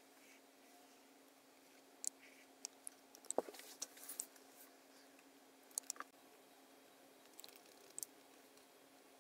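Scattered sharp computer keyboard and mouse clicks over a faint steady hum: a quick cluster from about two to four seconds in, then a few single clicks later.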